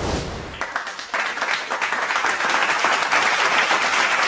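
Applause from many people clapping, building up strongly about a second in.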